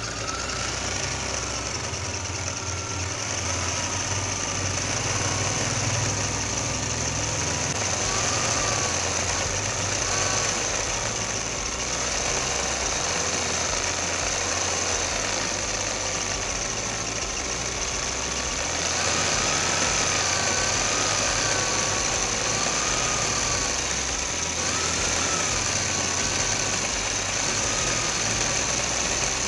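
Typical GC6-28-1 industrial high-speed lockstitch sewing machine running steadily with no upper thread while its bobbin winder fills a bobbin. It makes a constant high whine over a hum, with a fainter whine that wavers up and down, and gets a little louder about two-thirds of the way through.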